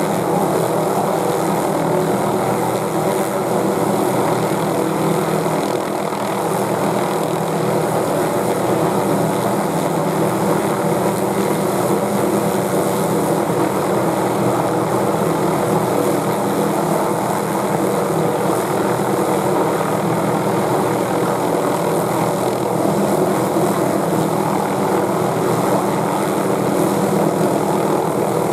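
Hughes 500E (MD369E) helicopter hovering close by: the steady, loud running of its turbine engine and main and tail rotors, holding an even pitch throughout.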